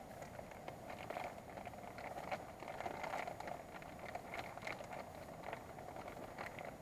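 Wood campfire crackling, with irregular sharp pops and snaps over a steady hiss.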